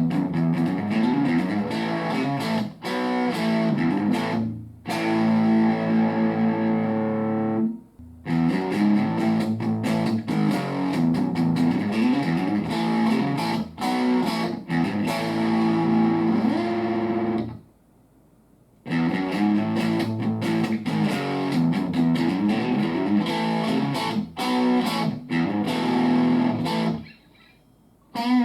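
Electric guitar played through a BOSS Nextone Stage amplifier on its lead channel with the gain at 10, giving a distorted lead tone. Quick single-note runs with a few held notes, and the playing stops briefly twice: about two-thirds of the way in, and again near the end.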